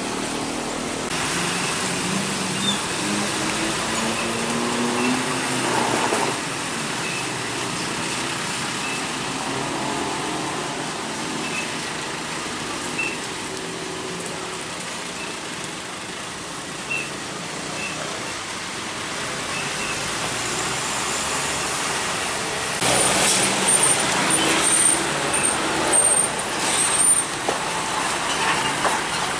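Road traffic with heavy trucks passing, their engines rising in pitch as they pull away. Near the end a louder stretch of sharp high-pitched squeals and hissing, like truck air brakes.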